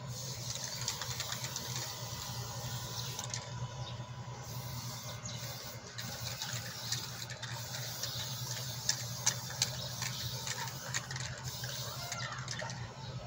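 Aerosol spray can hissing in long sprays with short breaks, aimed over hermetic refrigeration compressors, over a steady low hum. A few sharp clicks come about two-thirds of the way through.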